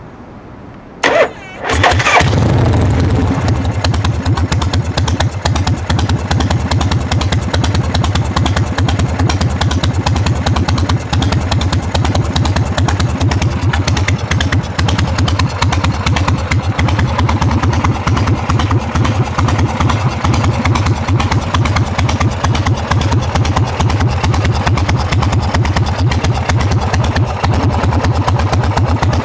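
1981 Harley-Davidson FXEF Fat Bob's Shovelhead V-twin starting: a brief crank about a second in, then the engine catches and settles into a steady, pulsing idle through its chrome dual exhausts.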